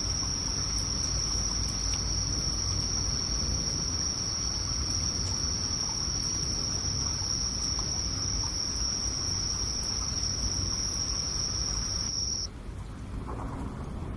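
Insects trilling in one unbroken high note over a low rumbling noise. The trill stops abruptly about twelve seconds in, leaving a quieter hiss.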